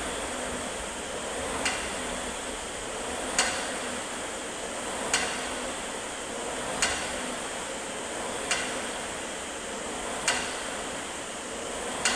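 Ski ergometer in use for double-poling: its air flywheel gives a steady whoosh, with a sharp click at the bottom of each pull, about every 1.7 seconds.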